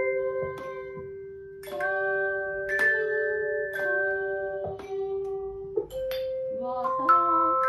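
Tone chimes being struck, one note or a small group of notes at a time, each ringing on and overlapping the next into soft chords. New notes come in about every second, a few in quicker succession near the end.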